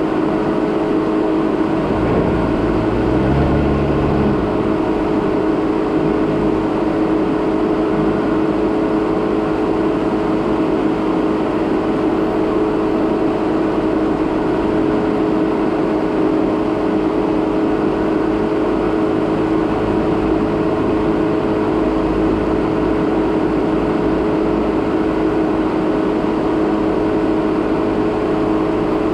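2017 Jeep Renegade Trailhawk driving slowly over a rough dirt road: steady engine and road noise with a constant hum, and a brief low rumble about two to four seconds in.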